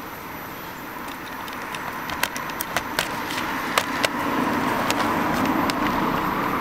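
A sack being torn open at its top: a run of sharp crackling snaps, over the steady noise of a car on the road that grows louder toward the end.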